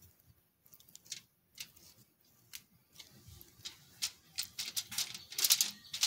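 A fork spreading mayonnaise over a whole fish on aluminium foil: scattered short wet clicks and scrapes, coming thicker and louder near the end.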